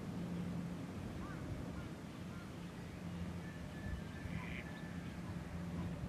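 Eastern spot-billed ducks quacking faintly a few times over a steady low hum.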